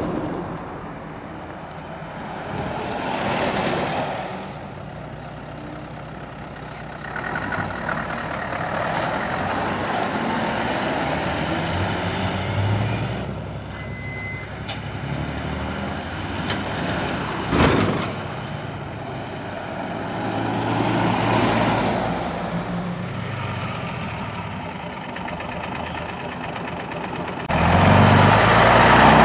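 A procession of lorries driving past one after another, each diesel engine rising and fading as it goes by. There is a short sharp noise about two-thirds of the way through. The loudest part comes near the end, when a heavy ex-army six-wheel-drive recovery truck's engine pulls up close.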